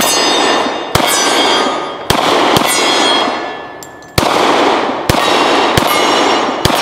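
Glock 23 pistol in .40 S&W firing eight deliberate shots, spaced about half a second to a second apart, each loud report followed by a long ringing decay.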